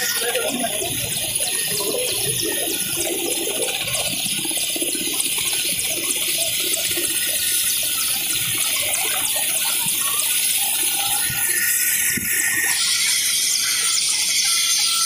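Mi-17-type military transport helicopter running on the ground: a steady rushing hiss from its turboshaft engines and rotor, with a thin high whine.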